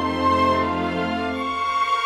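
Background instrumental music with long held notes.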